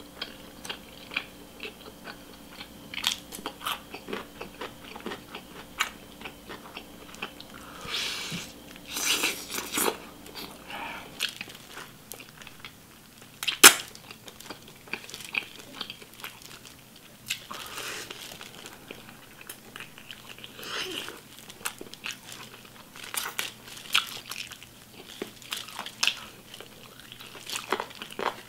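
Close-miked eating of a grilled whole chicken leg: biting into the glazed skin and meat, with wet chewing and smacking. Many small clicks, and one sharp crack about fourteen seconds in that is the loudest sound.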